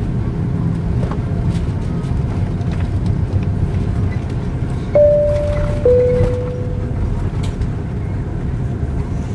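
Steady low rumble of an Airbus A330-300's engines and cabin, heard from inside, as the airliner rolls along the taxiway after landing. About five seconds in, a two-tone cabin chime sounds: a high note, then a lower one that fades.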